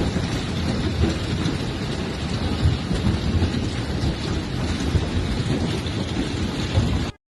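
Golf-ball-sized hail pounding down in a dense clatter of impacts, heavy with low thuds. It cuts off suddenly near the end.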